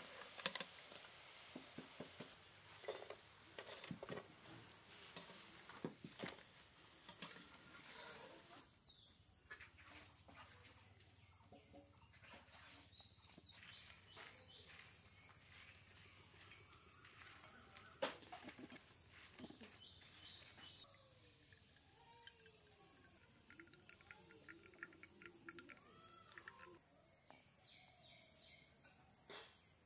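Insects chirring steadily at a high pitch throughout. For the first eight seconds or so, potato fries sizzle in hot oil in an iron wok, with light clicks of a slotted metal spoon. Then the sound drops abruptly to quieter outdoor sounds, with a single sharp click about eighteen seconds in and faint bird calls later.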